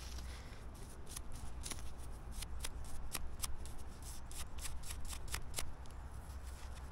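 Irregular sharp clicks and taps of small corroded metal coins being handled and knocked together, a few a second.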